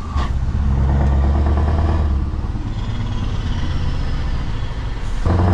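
A lorry's diesel engine drones low and steady from inside the cab while the truck is under way. The sound dips briefly at the start with a short hiss, and swells louder again near the end.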